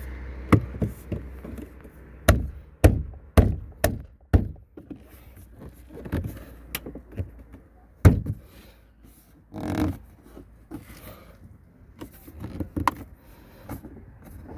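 A new plastic door grab handle being pressed and knocked into a MK4 Golf door card: a string of sharp plastic knocks and clicks, five in quick succession about two to four seconds in, the loudest about eight seconds in, with a brief scraping rustle after it.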